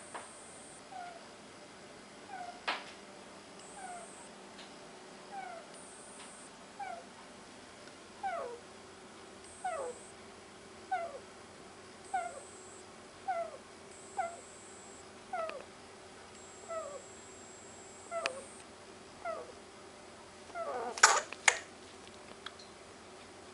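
Sleeping guinea pig snoring: short squeaky breaths, each falling in pitch, about one every second or so. Near the end come a couple of sharp, louder noises.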